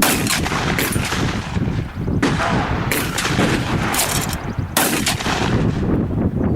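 Gunfire on a shooting range: about four sharp shots spread over several seconds, each trailing off in echo, over a steady rushing noise.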